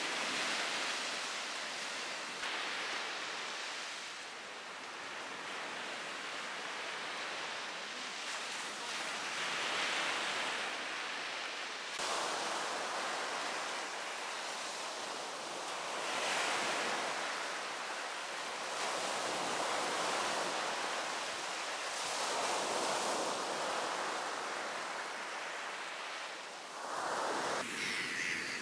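Small sea waves breaking and washing up a sandy shore, the surf swelling and easing every few seconds.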